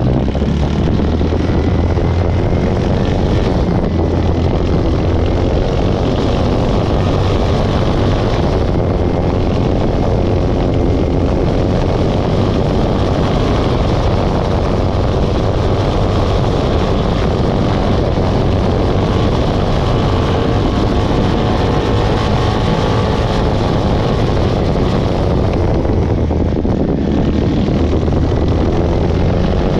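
Single-axle two-wheel tractor's engine running steadily as the machine drives along, a loud even drone with no change in speed.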